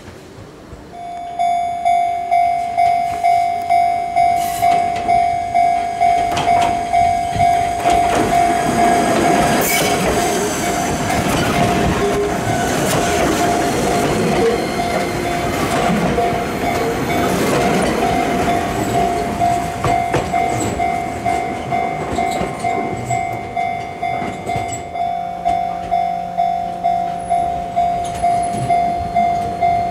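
Japanese level-crossing alarm ringing, a steady electronic clang repeating about one and a half times a second, starting about a second in. In the middle an Enoshima Electric Railway 500-series train passes close by on a tight curve, with wheel rumble and high screeching from the rails that rise and then fade. Near the end a low hum comes in as the next train approaches.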